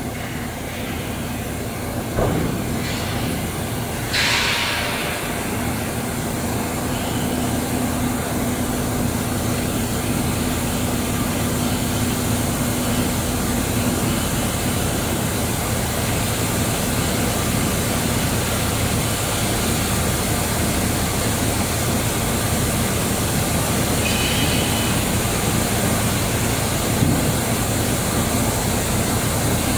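Bakery production-line machinery running with a steady mechanical drone, with a motor hum while the dough-bowl lift raises the mixer bowl, which then tips it over the dough divider's hopper. A short hiss about four seconds in and a couple of brief clicks.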